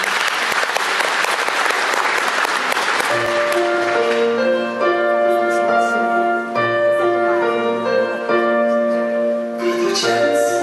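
Audience applauding, dying away about four seconds in as piano music begins, playing the introduction to a song.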